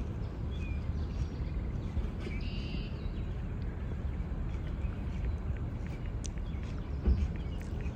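Outdoor ambience: a steady low rumble with a few short bird calls, the clearest about two and a half seconds in, and a brief thump near the end.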